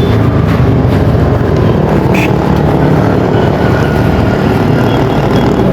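Motorcycle engine running steadily as it rides along a road, a continuous loud drone with road noise.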